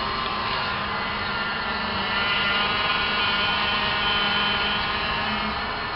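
A van's power steering whining as the steering wheel is turned with the engine running: a steady whine of several tones that swells slightly in the middle and eases again near the end.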